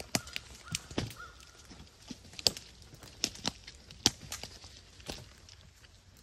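Footsteps crunching through dry leaves and snapping twigs on the forest floor, as irregular sharp cracks, the loudest about two and a half and four seconds in.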